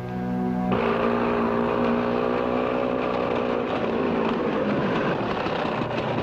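A motor engine running steadily, coming in suddenly about a second in.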